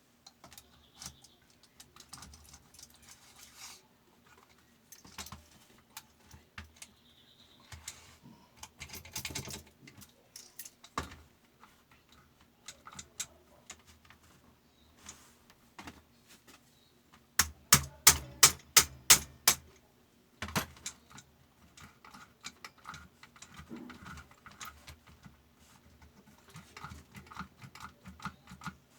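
Metal parts and hand tools being handled while the sharpener of a fabric cutting machine is worked on: scattered clinks and taps, a single sharp knock a third of the way in, and a quick run of about eight sharp knocks, roughly four a second, a little past halfway.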